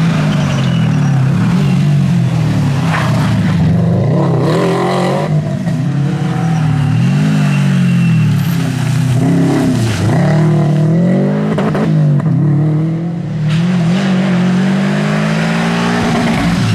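Subaru WRX STI rally car's turbocharged flat-four engine running hard, its pitch climbing through each gear and dropping on lifts and shifts, over and over.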